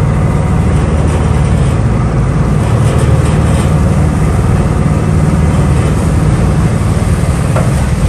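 An engine running steadily, with a loud, deep, unbroken rumble.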